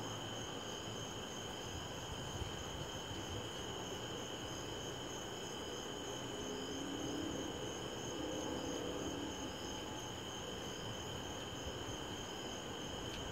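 Crickets chirping in a steady chorus of several high, unbroken trills, over a low, even background rumble.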